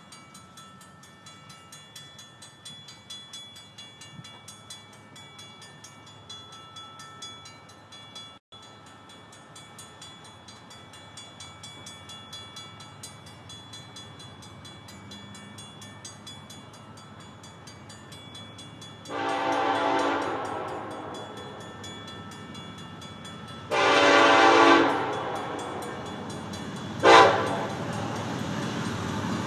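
Nathan K5LLA five-chime locomotive air horn sounding the grade-crossing signal: a long blast about 19 seconds in, a second long blast about 24 seconds in, and a short toot about 27 seconds in. Before the horn there is only a faint background with a light regular ticking.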